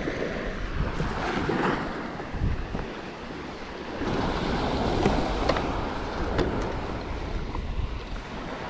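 Surf washing on the shore under wind buffeting the microphone, with a few light clicks of handling gear midway through.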